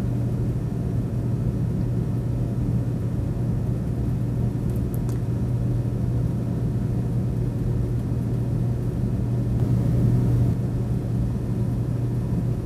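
Roco HO scale class 212 model diesel switch engine backing slowly along the track: a steady motor and wheel hum, with a few faint clicks about five seconds in.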